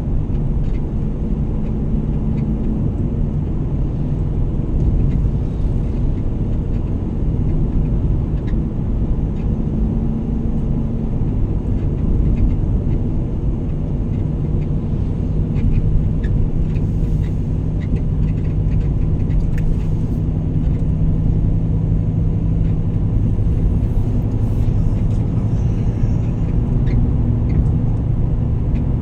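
Steady low engine and road rumble of a car being driven along, its engine note shifting slightly, with a few faint ticks.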